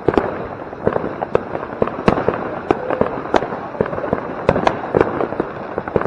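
Firework fountains (Bugano Gold-Silber ground fountains) burning with a steady hiss, under many sharp, irregular firecracker bangs and pops.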